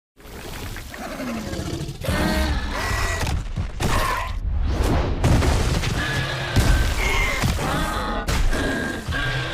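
Layered demon creature sound effects: shrieking, snarling calls gliding up and down in pitch over a heavy low rumble, broken by several booming impacts. It starts suddenly after a moment of silence.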